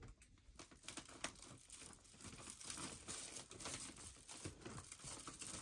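Faint, continuous rustling and crinkling made up of many small clicks, slowly getting louder.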